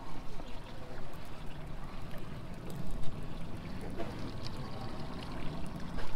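Trolling boat under way: water washing and splashing along the hull over a steady low motor hum.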